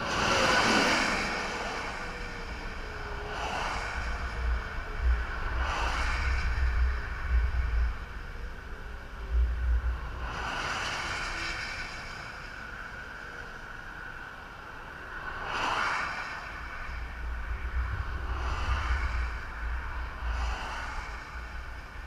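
Interstate traffic passing close by: cars and trucks go past one after another, about seven in all, each a rising and fading tyre-and-air rush, the first and loudest right at the start. Gusts of wind rumble on the microphone in between.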